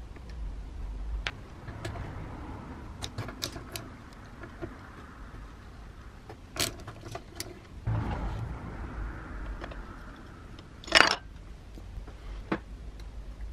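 Small metal tool handling on a planer's cutter drum: a socket wrench turning the blade-clamp bolts, with scattered clicks and soft scraping and one sharp metal clack about eleven seconds in.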